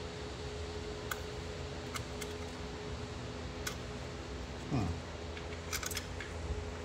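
Screwdriver turning a small Phillips screw into a metal ignition backing plate by hand: a handful of sharp little metallic clicks and ticks, spaced irregularly, over a steady background hum.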